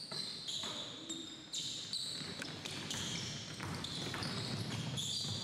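Basketball being played on a hardwood gym floor: many short, high sneaker squeaks over the thuds of the ball bouncing.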